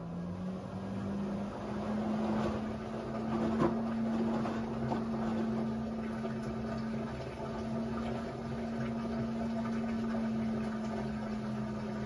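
Front-loading washing machine's motor whirring as the drum turns slowly with wet laundry, the hum rising in pitch over the first second or so and then holding steady, with water sloshing in the drum. The machine is set to No Spin, so the drum does not pick up to spin speed.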